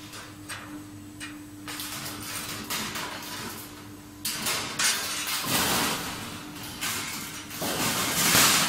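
Handling noise from a thin laser-cut stainless steel sheet being picked up and moved, with light clicks and then rustling and rubbing close to the microphone, loudest near the end. A steady low hum runs underneath.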